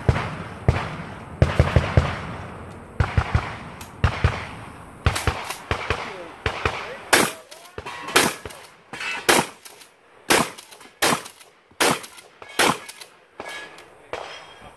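Gunfire during a timed stage: a quick cluster of shots in the first few seconds, then a steady string of single shots about every half to three-quarters of a second from around seven to thirteen seconds in.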